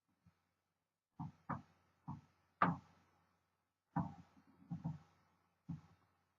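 1957 Remington Quiet Riter manual typewriter clacking: about nine separate sharp strikes at an uneven, unhurried pace, the loudest a little over halfway through the first half.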